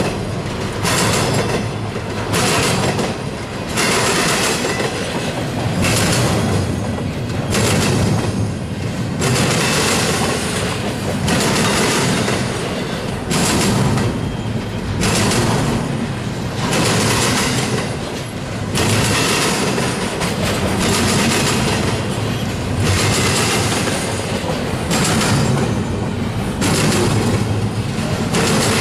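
Double-stack intermodal well cars of a freight train rolling past close by: loud, steady wheel-on-rail noise with a clickety-clack, swelling every one to two seconds as each set of wheels goes by.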